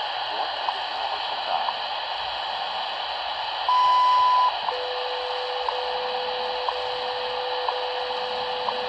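WWV time-signal broadcast on 25 MHz, heard through a DeepSDR 101 receiver's speaker over a steady hiss of shortwave static. Short ticks come once a second. About four seconds in, a long high beep of under a second marks the top of the minute, and a steady lower tone follows, broken briefly at each tick.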